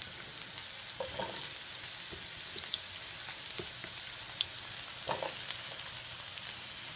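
Squash searing in a pan on high heat: a steady sizzle with scattered small pops and crackles.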